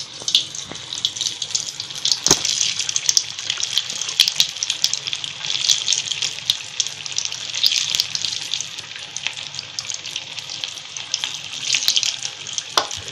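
Batter-coated potato vadas deep-frying in hot oil in a kadai, giving a steady crackling sizzle.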